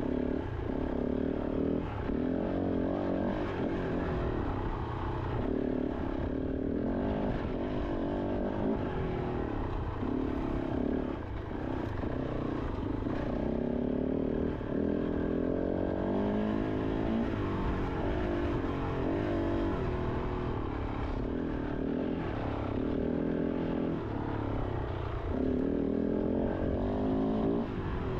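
Kove 450 Rally's single-cylinder four-stroke engine under way on rough trail, its pitch rising and falling again and again as the throttle is opened and rolled off.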